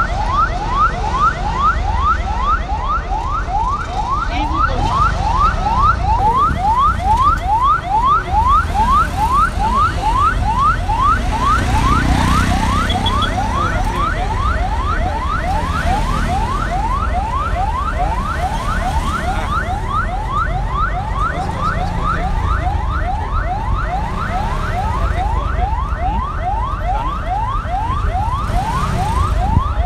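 Electronic vehicle siren sounding a fast, unbroken run of rising sweeps, several a second, over the low running rumble of the auto-rickshaw the sound is heard from.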